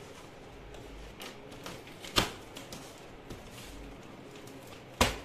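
Scissors cutting the plastic packing straps on a taped cardboard box. There are two sharp snaps, one about two seconds in and one near the end, with lighter clicks of handling in between.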